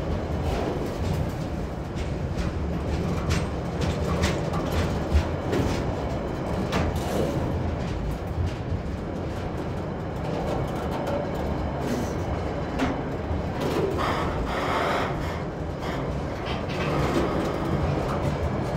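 Freight train of container and tank wagons rolling over a timber trestle bridge: a steady rumble of steel wheels on rail with irregular clanks and knocks.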